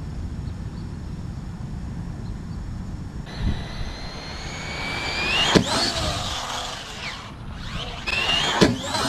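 High-pitched whine of an Arrma Typhon TLR 1/8-scale RC buggy's brushless electric drivetrain, rising in pitch as it accelerates toward the jump ramp, then a sharp knock as it strikes the ramp. The whine drops and climbs again as the wheels spin freely, and a second sharp knock comes near the end.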